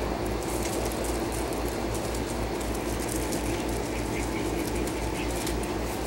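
A steady low mechanical hum with a fast, even throb underneath, with scattered faint light clicks and scuffs over it.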